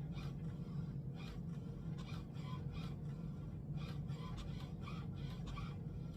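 HP Smart Tank 5100 inkjet printer printing: a steady low motor hum with a quick swishing stroke about two or three times a second as the print carriage moves back and forth.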